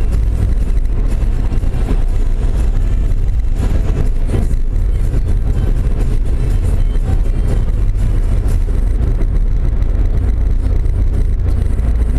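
Car driving at steady road speed, heard from inside the cabin: a constant low rumble of engine and tyre noise.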